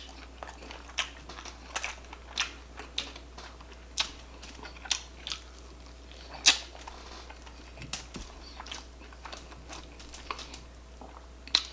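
Close-miked chewing of jumbo shrimp in garlic butter sauce: irregular wet mouth clicks and smacks, about one or two a second.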